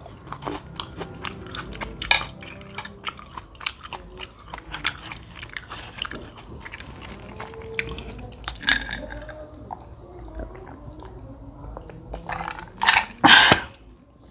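Grapes being bitten and chewed close to the microphone: a run of short crisp crunches and clicks, with a louder cluster near the end.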